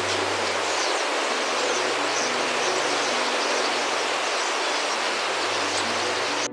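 Steady rushing hiss of a huge flock of European starlings in murmuration, the sound of thousands of wings, with a few faint high chirps scattered through it. It cuts off abruptly at the end.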